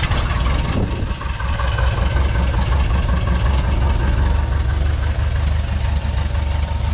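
Light floatplane's piston engine idling just after starting, settling into a steady low rumble about a second in as the plane taxis away from the dock.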